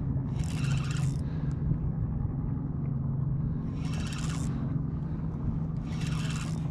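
A steady low engine drone runs throughout, with short bursts of a spinning fishing reel working about every two seconds as a hooked fish is played.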